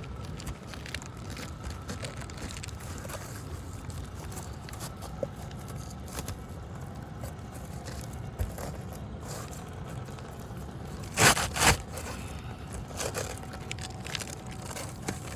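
Brittle asphalt roof shingles being lifted and worked by hand, with faint scraping and crackling, then two loud short tearing cracks close together about eleven seconds in as a shingle rips. A steady low rumble runs underneath.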